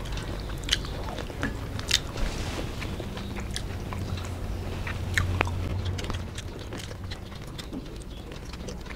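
Close-miked eating sounds of people eating rice and fried seafood with their hands: chewing, wet lip smacks and sharp mouth clicks, with an occasional crunch, over a low steady hum.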